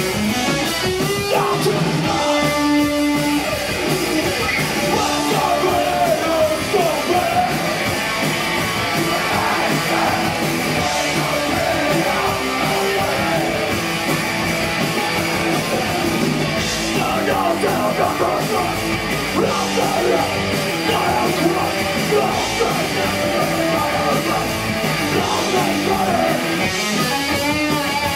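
Live punk rock band playing loud: electric guitars, bass and drums, with a singer at the microphone.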